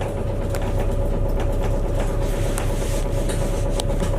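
Inside a moving city bus: a steady low rumble of engine and road, with a constant whine and scattered light rattles and clicks from the cabin.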